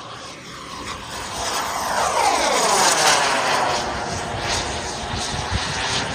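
JetCat 180 turbine of a large model L-39 Albatros jet making a pass: its whooshing jet noise swells to its loudest about three seconds in, with a sweeping phasing as it goes by, then eases off.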